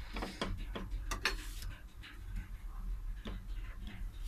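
Metal spatula tapping and scraping against a nonstick tawa as it presses and turns a cooking paratha: light, irregular clicks, bunched in the first second or so and then sparser.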